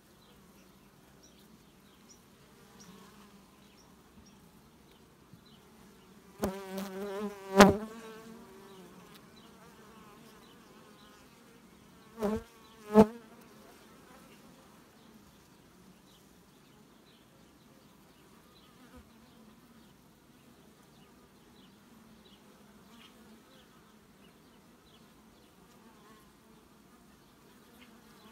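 Carpathian honeybees humming around an open hive. Twice a bee buzzes loudly right at the microphone, its pitch wavering, once around six to eight seconds in and again around twelve seconds in, each time with a couple of sharp taps.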